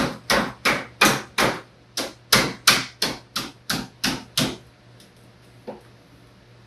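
Hammer tapping a folded sheet-metal edge flat against a table, about three sharp strikes a second, pulling the seam edge down. The strikes stop about four and a half seconds in, followed by one faint tap.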